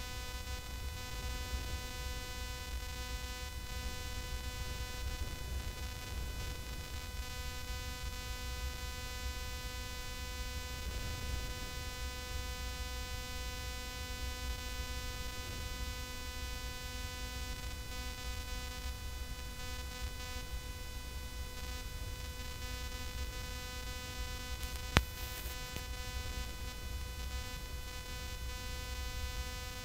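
Steady electrical hum and buzz from an idle PA sound system, with one sharp click about 25 seconds in.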